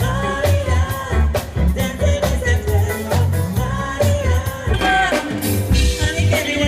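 Upbeat music with a singing voice over a steady, regular beat, in a ska or reggae-like style.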